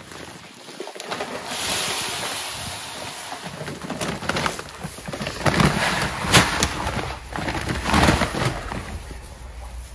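A cat rubbing and nosing against the camera: fur and body brushing and bumping right on the microphone. A rushing hiss swells about two seconds in, and several louder rubs and bumps follow in the second half.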